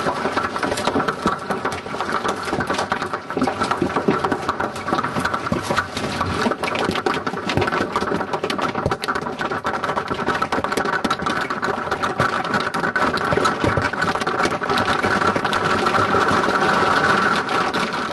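Golf-ball-sized hail pelting down in a dense, continuous clatter of rapid hard impacts.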